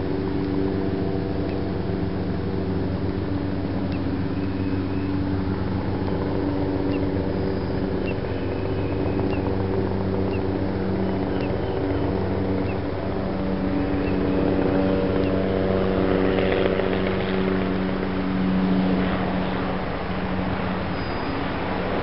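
A steady machine drone: a motor or engine running continuously with a low, even hum, swelling a little in the second half.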